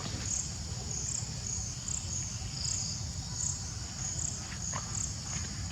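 Insects chirping in a steady high-pitched chorus that swells about once a second, over a low rumble.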